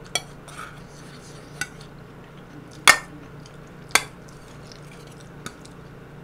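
A metal spoon clicking and scraping against a small hand-held bowl of tteokbokki sauce, a handful of sharp clinks spread out, the loudest about three seconds in. A low steady hum runs underneath.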